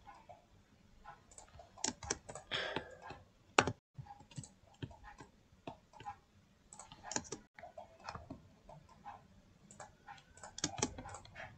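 Faint, irregular clicking of a computer mouse and keyboard keys, with one louder click about three and a half seconds in. The sound cuts out completely for an instant twice.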